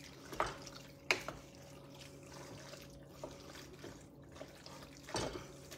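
Wooden spoon stirring penne pasta through thick Alfredo sauce in a stainless steel pot: faint wet squishing, with a few light knocks of the spoon against the pot.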